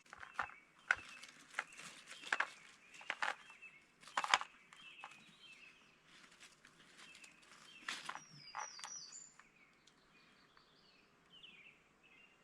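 Irregular crunching footsteps through brush and undergrowth, heavier in the first five seconds and again about eight seconds in. A bird gives a short falling call about eight seconds in, and short chirping calls repeat near the end.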